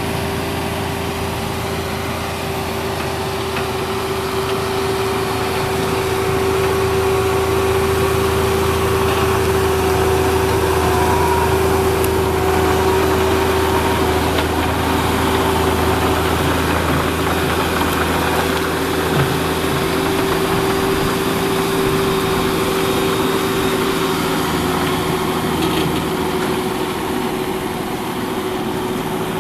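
Cat 305 mini excavator's diesel engine running steadily, with a steady hum over it; the low rumble drops away about two-thirds of the way through.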